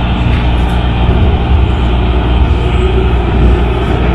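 MARTA heavy-rail subway train pulling out of an underground station and running off into the tunnel: a loud, steady rumble with a low hum, echoing off the platform walls.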